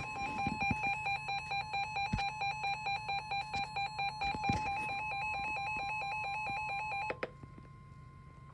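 EAS two-tone attention signal: a steady electronic alert tone with an even pulsing flutter, marking the start of an emergency alert broadcast. The louder part cuts off about seven seconds in, leaving a fainter steady tone.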